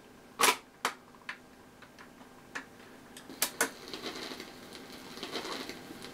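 BSR automatic record changer running through its change cycle: a string of sharp mechanical clicks and clunks as the mechanism drops a single from the spindle onto the platter and swings the tonearm over and down onto it. From about four seconds in a faint steady noise follows, the stylus running in the record's groove.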